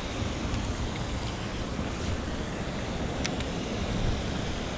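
Steady rush of flowing creek water with wind on the microphone, and a few faint ticks.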